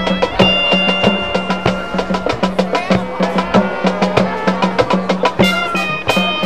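High school marching band playing: brass and woodwinds holding notes over busy, rhythmic percussion hits.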